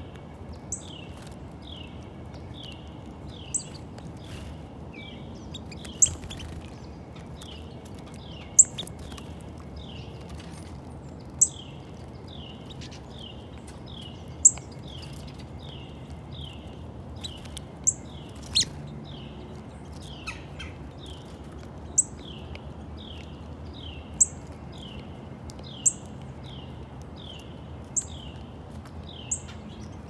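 Small songbirds calling: a steady run of short falling chirps, nearly two a second, with loud, sharp high chips every two to three seconds.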